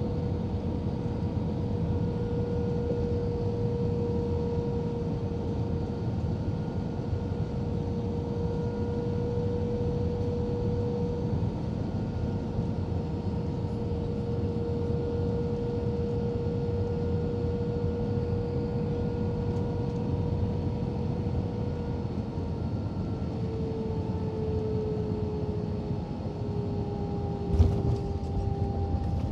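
Cabin noise of an Airbus A320 on final approach: a steady rush of engines and airflow with a steady engine tone that drops slightly in pitch as the thrust comes back for landing. Near the end comes a single thump as the main wheels touch down on the runway.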